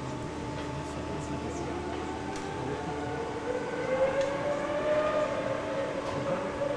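A Formula One car's engine out on the circuit, rising slowly in pitch and growing louder through the second half as it accelerates, over a steady hum.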